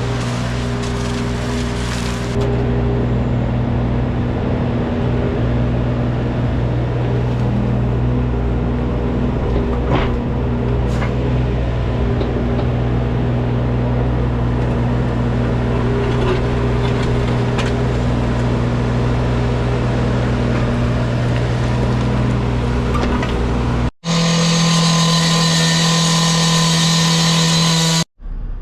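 Wacker Neuson mini excavator's diesel engine running steadily under digging work, with a couple of sharp knocks. About four seconds before the end the sound breaks and jumps to a different, steadier engine note.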